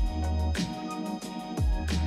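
Electronic background music with a steady beat and deep bass hits that slide down in pitch.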